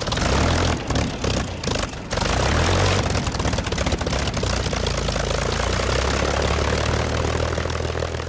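Propeller aircraft engine running with a steady drone, choppy and uneven for about the first two seconds, then even.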